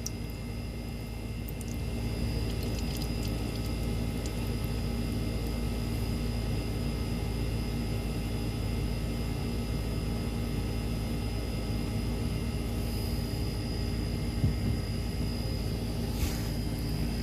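A steady machine hum made of several fixed tones, unchanging throughout, with a few faint clicks.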